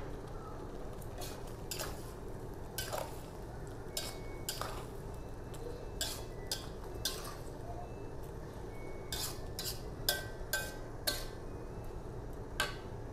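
Metal spatula stirring and scraping in a steel wok of saucy shellfish and vegetables: irregular clinks and scrapes of metal on metal, some with a brief ring, over a steady low background hum.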